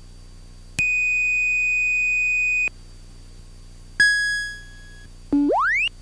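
Three electronic alert tones from the cockpit avionics over a steady low hum. First a flat high beep lasting about two seconds, then a single chime that fades, then near the end a short tone that sweeps quickly upward in pitch.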